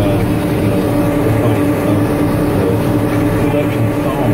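Tractor pulling a New Holland 488 haybine mower-conditioner through standing grass, the engine and the haybine's drive running at a steady pitch under cutting load.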